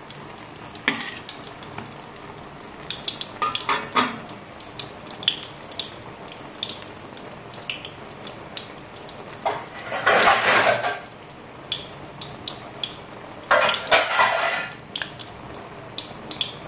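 Mung-bean and carrot batter fritters frying in hot oil in a steel wok: a steady sizzle with scattered crackles and pops. A metal spatula clinks against the wok about a second in and again around four seconds, and there are two louder rushes of noise, each lasting about a second, around ten and fourteen seconds in.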